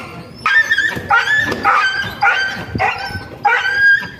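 A freshly caught stray dog yelping and crying in distress: short high cries, about six in a row at almost two a second.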